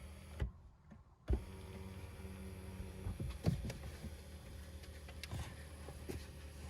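Mercedes GLE's electric front-seat motor running as the seat travels rearward, a steady motor hum with a whine over part of its run. It cuts out briefly near the start, and there are a few light clicks along the way.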